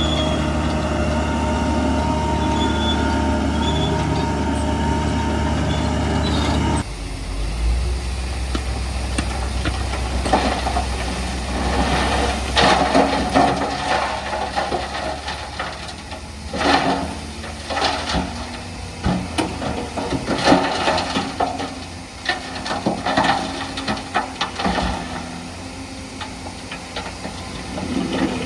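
Heavy diesel earthmoving machinery running steadily. About seven seconds in the sound changes abruptly to a lower engine note with many irregular clanks and rattles.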